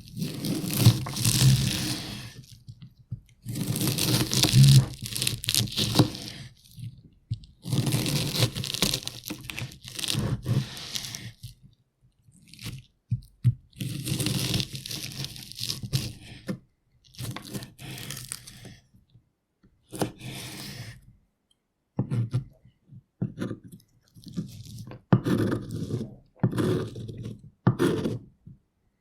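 Knife cutting and chopping an onion on a cutting board: runs of quick slicing strokes in bursts of about two seconds with short pauses between, giving way about halfway through to sparser, separate chops.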